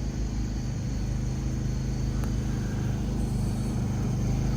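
Predator portable gasoline generator running steadily with an even low hum, powering an air conditioner.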